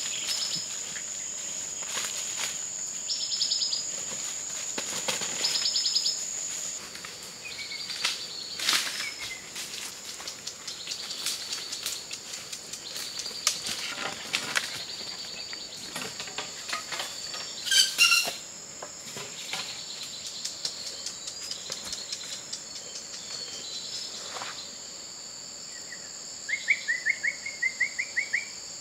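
Forest ambience: a steady high-pitched insect drone, scattered bird chirps, and footsteps crackling through dry leaf litter. Near the end a bird gives a quick run of sharp chirps.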